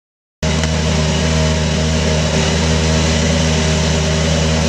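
A race car's engine running at a steady, unchanging idle, cutting in suddenly after a moment of silence.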